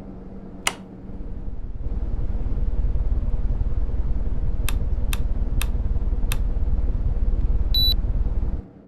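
Household air conditioner running: a steady hum under a strong low rush of air that cuts off sharply near the end. Several sharp clicks and a short high beep come through over it.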